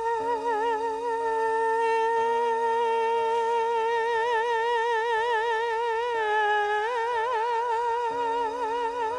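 Closing bars of a slow ballad: a wordless melody line with wide vibrato, held on long notes over steady sustained backing chords. It shifts to a slightly lower note about six seconds in, then rises again.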